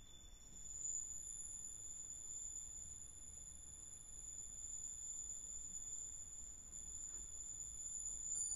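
Yamaha MODX+ synthesizer playing an ambient patch: several high, long-held tones layered together, swelling about a second in.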